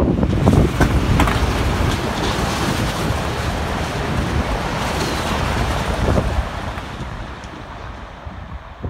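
Eurostar high-speed train passing at speed, a loud even rushing noise that fades away over the last few seconds as it recedes, with wind buffeting the microphone.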